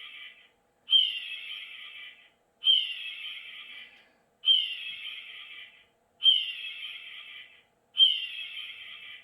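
Recorded raptor (hawk or eagle type) scream played on a loop: the same harsh, descending screech repeats about every 1.8 seconds, five times in full.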